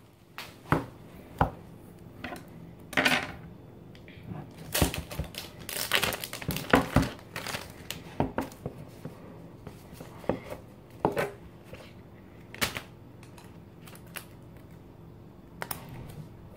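Unboxing handling of a smartphone box and its packaging: scattered clicks and taps of the box and lid on a tabletop, with several rustling bursts of clear plastic packaging, dying down to a few taps near the end.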